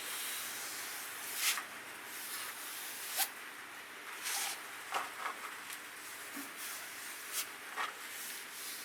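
Kitchen knife edge being stropped on a vinyl strop charged with Brasso: hissing rubbing strokes under firm pressure, several louder passes standing out from a steady scraping hiss.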